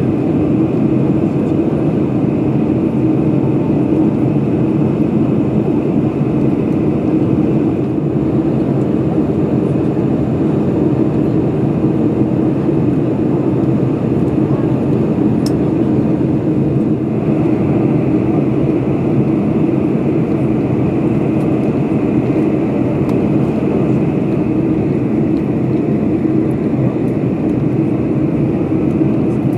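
Steady cabin roar inside a Boeing 747-400 airliner descending on approach: engine and airflow noise heard from a window seat.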